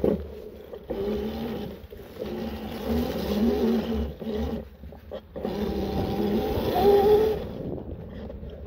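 A 1500 W electric bike's motor whining in spurts of about a second, its pitch rising and falling as it is throttled, over steady rushing noise.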